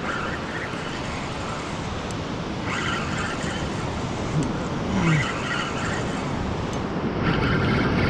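Steady surf and wind noise on an open beach, with a fishing reel being wound in short spells, about three times, while a hooked fish is brought in.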